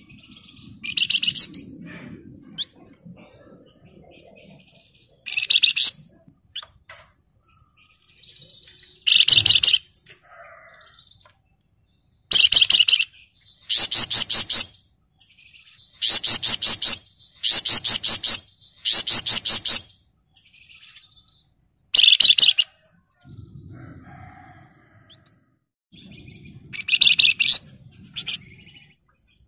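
Javan tesia (the 'flamboyan' or wergan Jawa) singing: a series of short, very high, rapid buzzing trills, about a dozen in all, coming close together in the middle.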